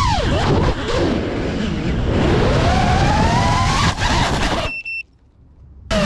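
FPV quadcopter's brushless motors running, their pitch gliding with the throttle: it drops sharply at the start, then climbs again. About three-quarters through the sound cuts off abruptly to near silence with a couple of short high beeps, and the motors come back just at the end.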